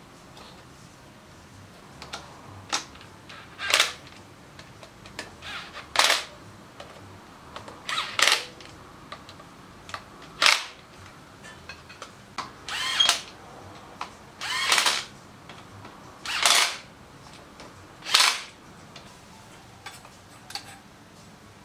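Tools working on a Harley Shovelhead's open belt primary drive: a series of short metallic strokes, roughly one every two seconds, some with a brief ring, as fasteners on the pulley are worked.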